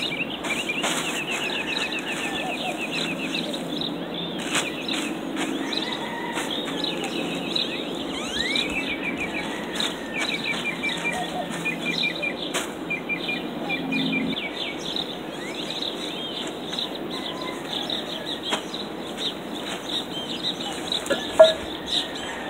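Outdoor birds chirping: repeated upward-sweeping calls and quick trills of rapid notes, over a steady low background hiss. A single sharp click near the end.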